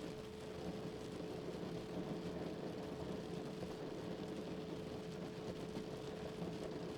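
A steady pure tone at 432 Hz holds unchanged over the continuous hiss and patter of rain.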